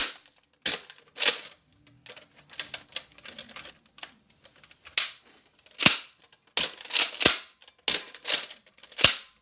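Sharp plastic clicks and clacks from a Nerf Recon CS-6 blaster being handled and worked, about a dozen irregular snaps. The louder, heavier ones come from about five seconds in.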